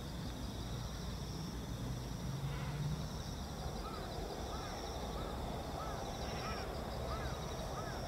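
Marsh ambience: steady high-pitched insect trilling throughout, with birds calling over it, short chirps repeating about twice a second from about four seconds in and a few harsher calls. A faint low rumble sits underneath in the first few seconds.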